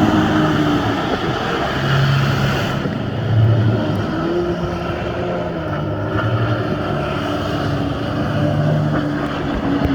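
Yamaha jet ski engine running, its pitch rising and falling as the craft maneuvers, under a steady rushing hiss of water and wind that thins out about three seconds in.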